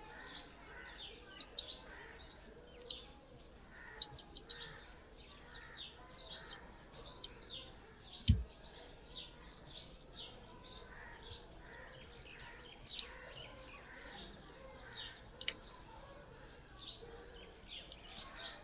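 Small birds chirping over and over, short falling notes about two a second. A few sharp clicks cut in, several in quick succession about four seconds in, and there is one low thump near the middle.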